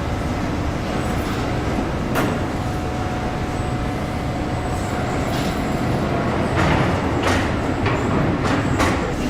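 Car assembly-line machinery running: a steady low rumble with a faint steady tone, a sharp click about two seconds in, and a cluster of short hisses and clatters near the end.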